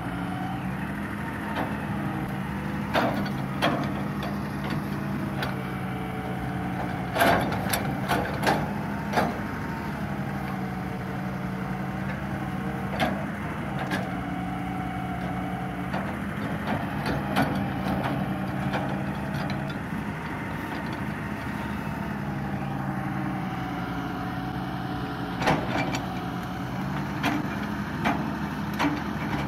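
Hitachi EX200 long-reach excavator's diesel engine running steadily, with a hydraulic whine that rises and falls as the long arm and bucket move. Sharp clanks from the arm and bucket come now and then, a quick cluster of them about a quarter of the way in and a few more near the end.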